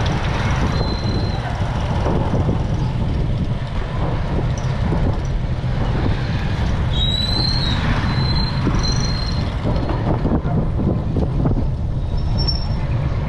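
Wind buffeting an action camera's microphone while cycling, a steady heavy rumble with road noise underneath. A few short high-pitched chirps come through about seven to nine seconds in and again near the end.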